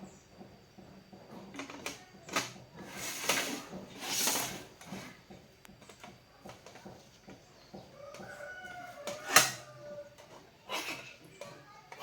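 A drawn-out animal call with a few steps in pitch, a little after halfway, amid bursts of scraping or rustling noise and knocks; a sharp knock is the loudest sound.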